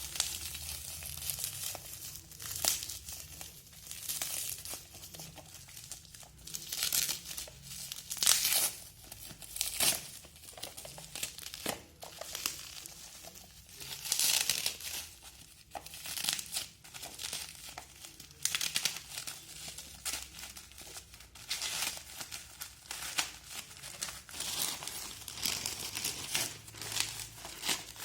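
Plastic packaging crinkling and tearing in irregular bursts as a sealed phone box is unwrapped by hand.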